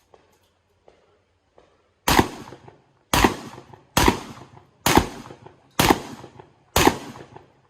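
Six shotgun shots fired in a steady string, about a second apart, each followed by a short ringing echo.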